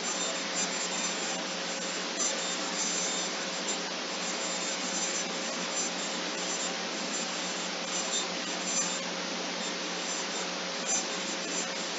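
Steady hiss, like a fan or a noisy recording, with a faint steady hum. Faint irregular clicks of typing on a computer keyboard sit underneath it.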